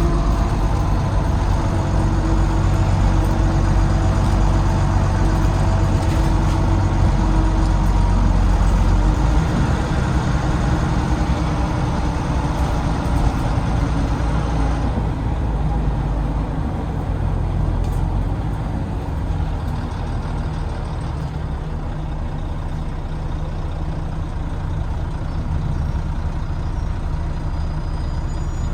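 Volvo B9TL bus's D9B diesel engine heard from the back seat, pulling with a steady whine over it for roughly the first nine seconds, then easing off and running quieter. The whine on acceleration is a noise the uploader can't place, wondering whether it is the gearbox, the cooling fan or the axles.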